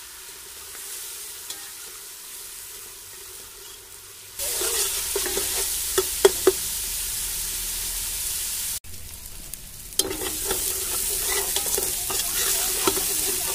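Ground onion paste frying in hot oil in a metal pot, sizzling as a metal ladle stirs it and clicks and scrapes against the pot, the onion being cooked until lightly golden. The sizzle is faint at first, turns loud about four seconds in, drops suddenly near nine seconds and comes back loud a second later.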